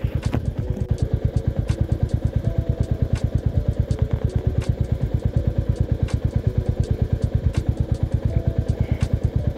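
Motorcycle engine idling with an even pulse of about ten beats a second.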